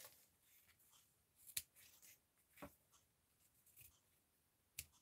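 Faint snips of small scissors trimming the end of a denim ribbon: three short clicks, spaced out, over near silence.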